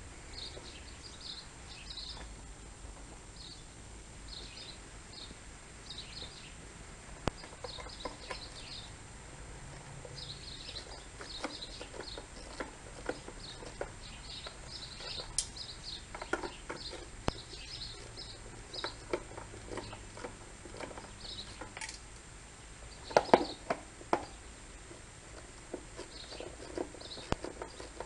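Small birds chirping in short repeated notes throughout, with scattered clicks and knocks of a Torx screwdriver working screws out of an air compressor's plastic motor cover. The loudest moment is a quick cluster of knocks about two-thirds of the way through.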